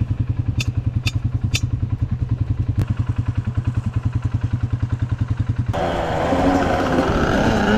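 An 85cc two-stroke dirt bike engine idling with a lumpy, pulsing beat of about ten pulses a second, with a few sharp clicks over it. About six seconds in, the idle gives way to a louder, rushing sound.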